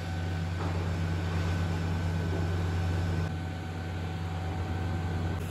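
Steady low electric-motor hum of ice cream processing machinery: the agitator motor of a stainless mixing vat running and stirring the mix, with a faint high whine over it. The hum dips slightly and changes character about three seconds in.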